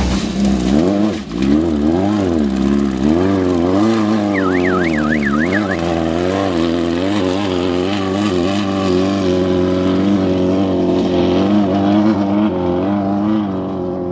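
Off-road race vehicle's engine revving, its pitch swinging up and down over and over, then holding steadier and fading out near the end. A brief high warbling tone sounds about four and a half seconds in.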